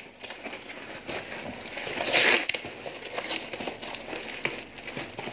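Cardboard parcel wrapped in plastic packing tape being handled and pulled open: crinkling and rustling of tape and cardboard, with a louder tear about two seconds in.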